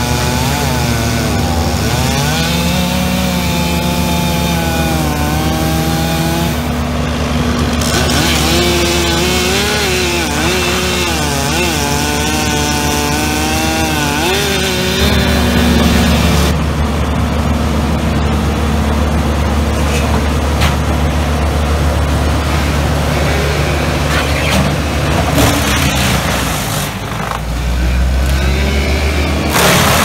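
Wood chipper engine running steadily while a chainsaw revs up and down over the first half; from about halfway on the engine's low drone is steadier and louder.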